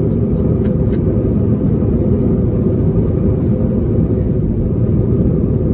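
Airbus A321 cabin noise from a window seat: steady jet engine and airflow noise with a constant hum underneath, no change in level.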